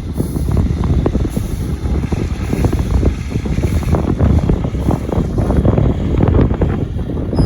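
Heavy farm equipment running steadily while scraping dirt: a loud low engine rumble laced with dense, irregular rattling and clatter.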